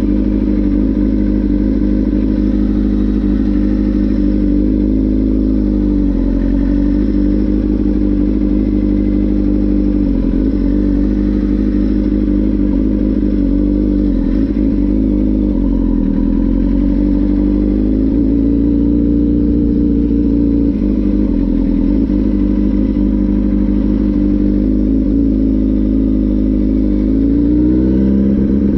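Motorcycle engine running under the rider at low speed. Its pitch dips and comes back up several times with the throttle, then climbs near the end.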